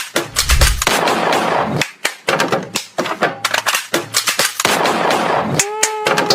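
A rapid, irregular run of sharp cracks like gunfire, with swells of hiss between them. About five and a half seconds in, a held tone comes in and slowly sinks in pitch under the cracks.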